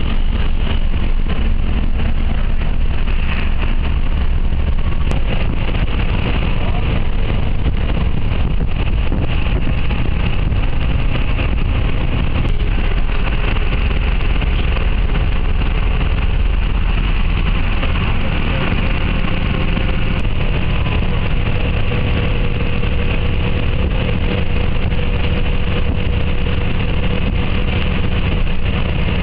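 Bus engine and road noise heard inside the cabin while driving: a steady, loud low rumble that does not let up.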